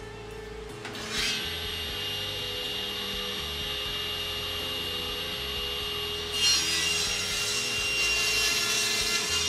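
Table saw blade cutting across a glued-up hardwood panel fed on a miter gauge, over the saw's steady running hum. The cut bites in about a second in and grows louder for the last three seconds.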